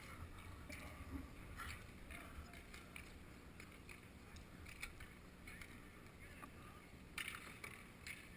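Faint outdoor roller hockey rink ambience heard from a goalie's helmet camera: a low steady rumble with scattered light clicks and knocks from play on the concrete surface, and a brief louder patch of noise about seven seconds in.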